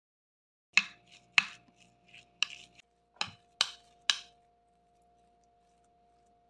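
Steel spoon knocking against a ceramic bowl while mashing boiled potatoes: about six sharp clicks over three seconds, starting about a second in.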